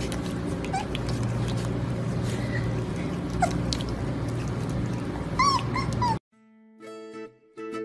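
A puppy giving faint squeaks, then a quick run of about four short, high whimpering yips, over a steady low room hum. It cuts off abruptly a little after six seconds, giving way to light plucked-string music.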